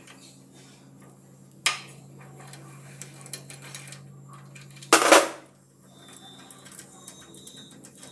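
Metal tools clinking against a Greaves engine's aluminium tappet cover as its bolts are undone with a 13 mm spanner: scattered light clicks, a sharp clink a little under two seconds in and a louder metallic clatter about five seconds in.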